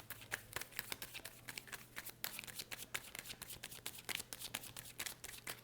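Tarot cards being shuffled by hand: a quick, irregular run of crisp card clicks and flicks, several a second.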